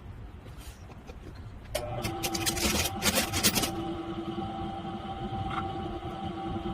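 A small workshop machine motor starts about two seconds in and runs with a steady hum. Louder rasping bursts come between about two and four seconds in, from work being done on the machine.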